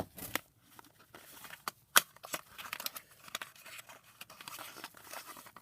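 Packaging being handled by hand: rustling and crinkling with scattered sharp clicks, the sharpest about two seconds in.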